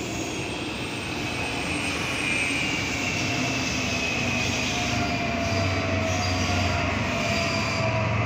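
Madrid Metro electric train running on surface track, a continuous rumble with a whining squeal whose tones slowly fall in pitch, and a low hum that grows stronger about halfway through.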